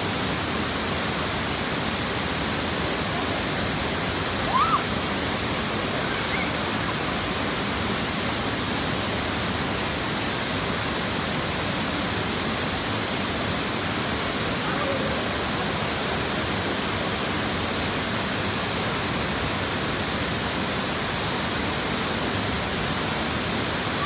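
Waterfall pouring into its plunge pool: a steady, dense rush of falling water that does not change. About four and a half seconds in, a brief higher-pitched sound rises over it.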